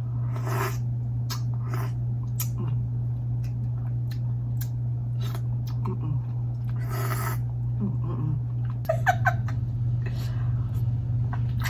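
Close-up eating sounds from a blue crab feast: short clicks and cracks of crab shell and meat being handled and chewed, with a few wet sucking bursts, over a steady low hum. A short pitched, wavering sound comes about nine seconds in.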